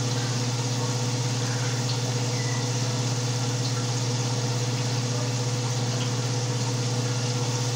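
Kitchen range hood fan running with a steady low electric hum.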